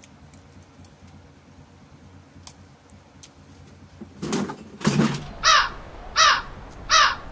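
An animal calling: four harsh calls that fall in pitch, evenly spaced about two-thirds of a second apart. They begin about five and a half seconds in and follow two rougher, louder bursts.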